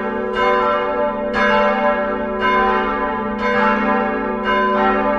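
Church bells pealing, a new stroke about once a second ringing on over the previous ones.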